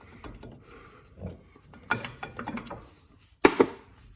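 Tools and metal brake parts knocking and clicking against each other while working at a car's rear brake caliper, with a sharp knock about two seconds in and two loud, sharp knocks in quick succession near the end.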